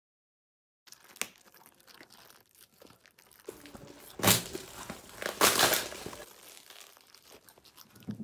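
Thin plastic bag crinkling and tearing as a wrapped package is ripped open, starting about a second in, with two louder tears about four and five and a half seconds in.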